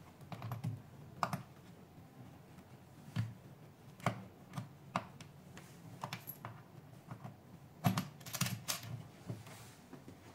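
Irregular light clicks and knocks of a cable plug being pushed into a socket on the back panel of a microneedling machine and the cables being handled, with a quick cluster of clicks about eight seconds in.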